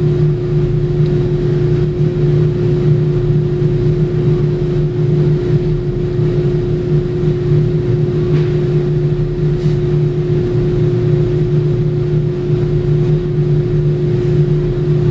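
Car engine idling with a steady, even hum.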